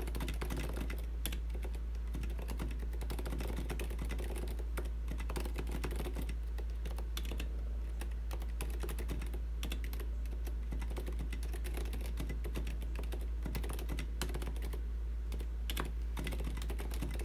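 Continuous typing on a custom IDOBAO ID80 aluminium-case mechanical keyboard with Kailh Box Silent switches and SA-profile keycaps: a steady stream of soft, damped keystrokes, surprisingly quiet, over a constant low hum.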